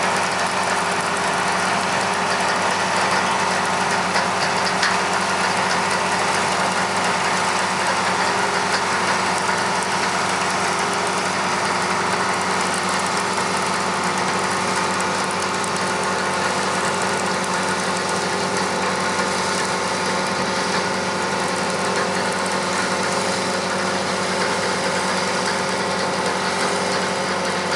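Engine of a small amphibious dredging machine running steadily as it pushes through pond sludge, its pitch holding even throughout.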